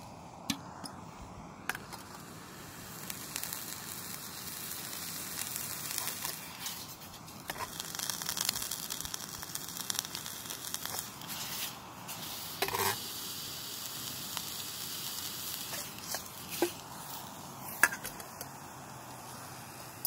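Sausages sizzling in a stainless steel pan over a mini propane stove, a crackly hiss that builds a few seconds in. A few sharp clicks and knocks come through it.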